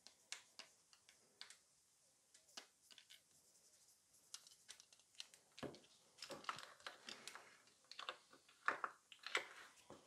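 Faint small clicks and taps of handling nail-art tools: acrylic nail tips set on their stands and a small plastic chrome-powder pot and lid, sparse at first and more frequent in the second half.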